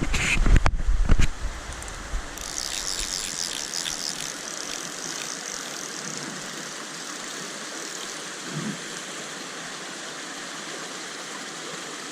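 Steady rushing of stream water, with a few heavy knocks on the microphone in the first second or so and a patch of fast, high ticking a few seconds in.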